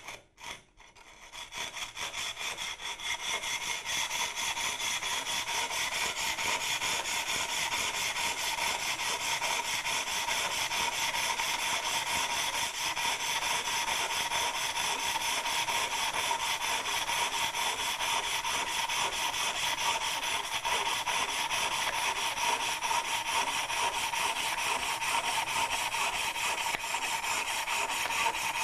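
Hand tile saw with a round rod blade sawing through a clamped tile, cutting a curve: a steady, rapid rasping of strokes that builds up over the first couple of seconds and then holds even.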